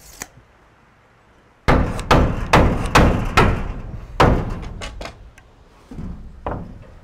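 A hammer nailing wooden board-and-batten siding: about nine hard strikes, starting about two seconds in, quick at first and spacing out toward the end.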